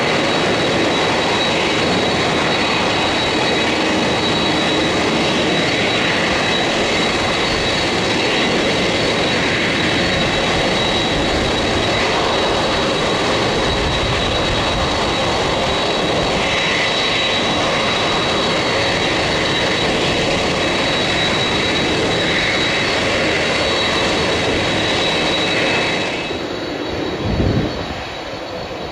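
Jet airliner engines running, a loud steady rush with a high constant turbine whine. Near the end the level drops and there is a brief low thump.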